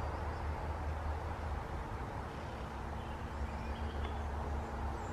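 Woodland outdoor ambience: a steady low rumble with a few faint, short bird chirps.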